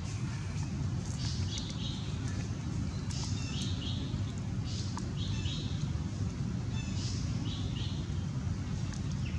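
Small birds chirping in short high phrases that recur every second or two, over a steady low rumble.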